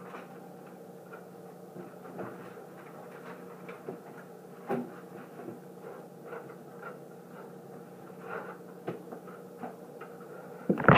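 Scattered small knocks, clicks and rustles of things being handled at a kitchen counter, over a steady low hum, with one sharper knock near the middle.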